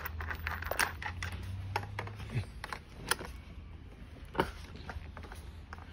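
Small metal washers and a nut clicking and tapping on a ride-on toy quad bike's rear wheel axle as they are fitted and turned by hand, with a few sharper clicks now and then.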